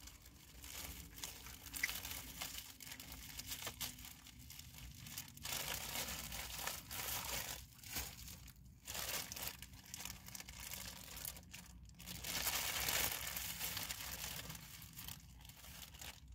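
Plastic food packaging crinkling as it is handled, in irregular bursts of a second or two with short pauses between them.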